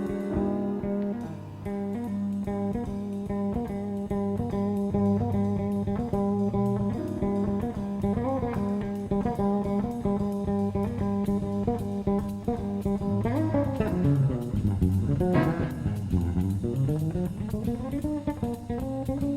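Live jazz-funk band music: a guitar line over electric bass and rhythm backing. From about two-thirds of the way in, melodic lines bend and glide up and down in pitch.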